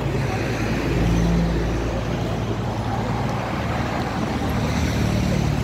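Road traffic: cars, an SUV and a minibus driving past on a busy multi-lane city street, a steady low rumble of engines and tyres.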